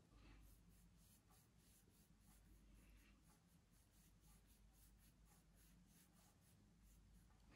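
Very faint swishing of a large paintbrush stroking oil paint across a cotton canvas, in a quick, even rhythm of about three strokes a second.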